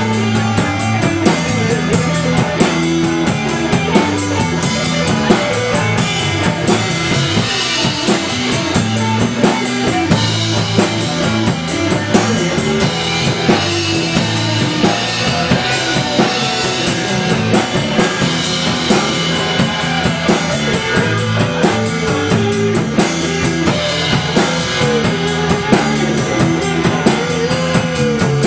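Live blues band playing an original blues number: drum kit, electric bass and electric guitars, with a blues harmonica played into the vocal microphone over them, its notes bending up and down.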